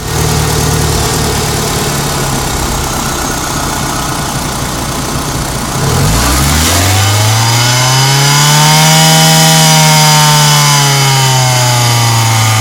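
Cessna 172's piston aircraft engine running steadily, then revved up about six seconds in, its pitch rising and then slowly easing back down. Its owner suspects the noise it makes may be abnormal.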